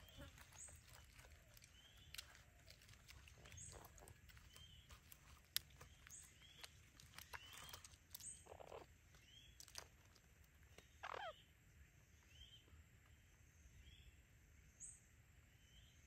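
Faint forest ambience: an animal repeating short, high chirps every second or two, with scattered light clicks and rustles. There is a sharp click about five seconds in and a louder falling call about eleven seconds in.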